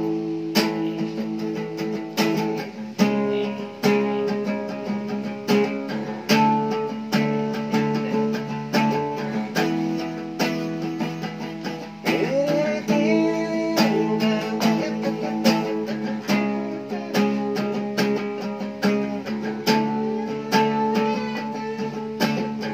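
Acoustic guitar strummed in a steady rhythm, its chords changing every few seconds.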